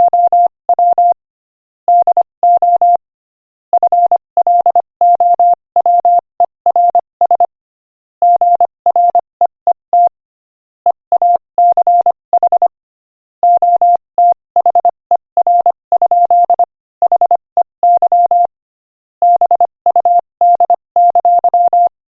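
Morse code sent at 25 words per minute as a single steady beep keyed on and off. Short dots and longer dashes are grouped into letters and words, with brief silent gaps between the groups.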